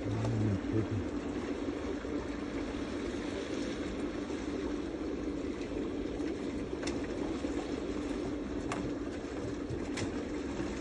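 Steady machine drone with a constant low hum, and a few faint sharp clicks in the second half.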